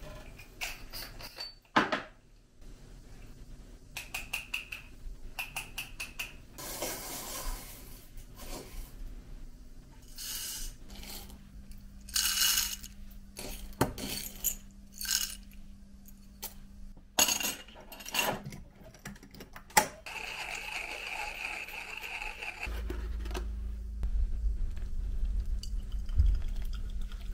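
Coffee beans and a metal scoop clinking and rattling against a glass jar and into a metal hand coffee grinder, in many short taps. Near the end, steady water pouring from a kettle into a paper filter.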